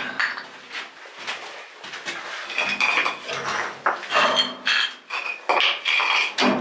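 Metal clinking and clattering: hard metal pieces handled and knocked together, with short ringing tones, growing busier after about two seconds.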